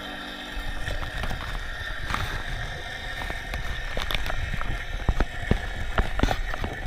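Underwater sound picked up by a diver's camera on a rocky kelp reef: a low, muffled water rumble with many scattered sharp clicks and knocks. The sound grows louder from about half a second in.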